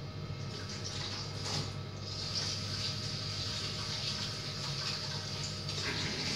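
Kitchen tap running into a vessel at the sink as soaked rice is rinsed: a steady rush of water that grows louder about two seconds in.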